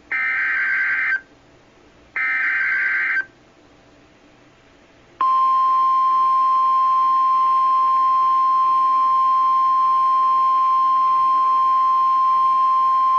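Emergency Alert System alert for a severe thunderstorm warning. It opens with two SAME header data bursts, warbling buzzes about a second long each, a second apart. After a two-second pause the steady 1050 Hz weather-radio attention tone starts about five seconds in.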